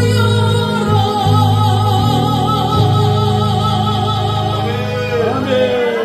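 A woman singing a Korean Christian praise song through a handheld microphone, holding one long note with wide vibrato over accompaniment with a steady bass. The note ends about four and a half seconds in, and shorter sung phrases follow.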